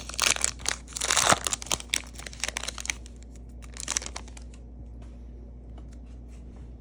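Plastic trading card pack wrapper being torn open and crinkled for about three seconds, then fading to a few soft rustles and clicks as the cards are handled.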